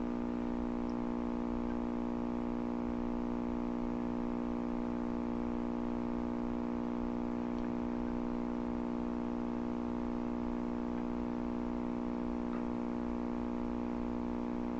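Lafayette HA-63 tube communication receiver's speaker giving a steady hum with a dense stack of overtones and no station coming through: power-supply ripple from bad filter capacitors, with the set running at reduced voltage on a variac.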